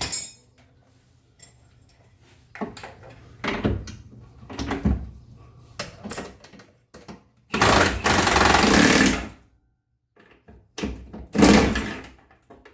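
An impact wrench runs in two bursts, the first about a second and a half long, the second about a second, driving bolts during the rear driveshaft and differential fitting. Tools clank and knock before the bursts.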